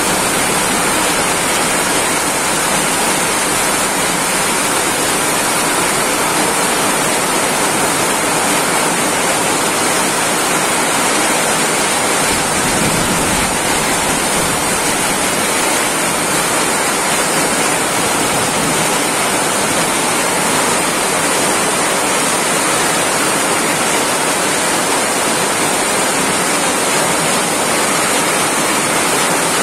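Heavy rain pouring steadily onto the station platform, its canopy roof and the tracks: a loud, even hiss that does not let up.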